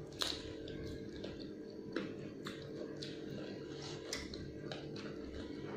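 Pani puri being eaten up close: crisp puri shells cracking and the wet chewing of the spiced-water filling, as irregular sharp crunches and clicks.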